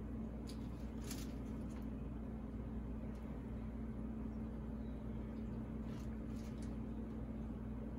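A steady low hum, with a few faint soft rustles as toppings are laid onto a sub sandwich by hand.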